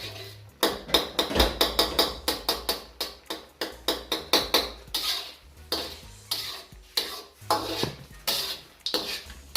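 Metal spatula stirring chicken in a metal karahi, clattering and scraping against the pan in quick repeated strokes, about three a second.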